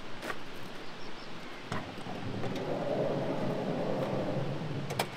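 Volkswagen T3 camper van's sliding side door unlatched with a click and rolled open along its track, a rumbling slide of about three seconds that swells and fades, then a sharp clack near the end.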